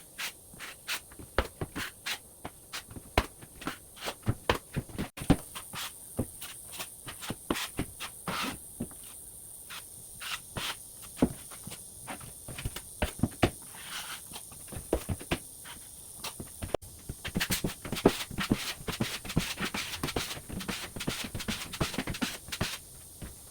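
Drywall knife working joint compound onto a taped drywall seam: irregular clicks and taps of the blade with scraping strokes as the mud is spread and smoothed.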